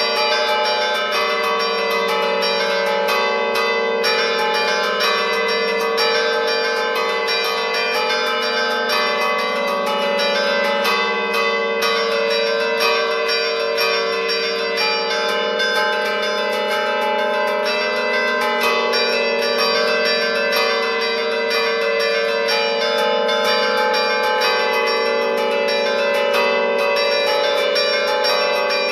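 Church bells played by hand from a baton keyboard (tastiera) whose chains pull the clappers against the stationary bells, in the Bergamasque "allegrezza" style. Quick strikes follow one another without a break, making a running melody over tones that ring on and overlap.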